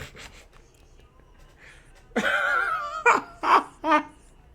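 Laughter: about two seconds in, a drawn-out wavering high voice, then three short bursts of laughing in quick succession.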